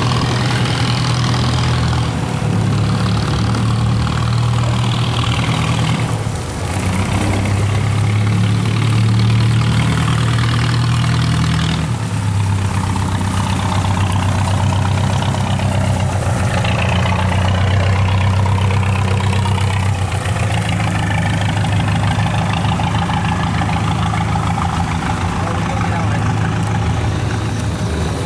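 Cargo boat engines running steadily as the boats motor through the lock close by, the engine note shifting in pitch a few times, with water rushing in the wake.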